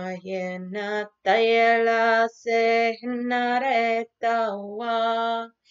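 A woman chanting light language: wordless, invented syllables sung on held, fairly steady notes in short phrases with brief breaks between them. The loudest is a long held note about a second and a half in.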